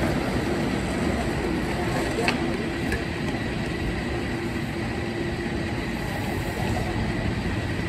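Steady street noise of a San Francisco cable car line: a continuous low rumble with a faint steady hum as Powell-Mason cable car 6 rolls away downhill. A single sharp click comes a little over two seconds in.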